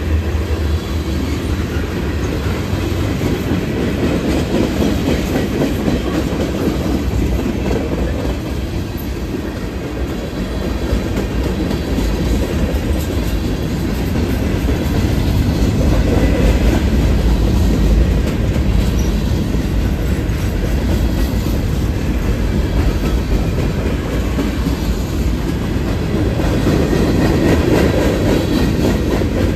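Freight train cars rolling past in a steady low rumble, with wheels clacking over the rail joints.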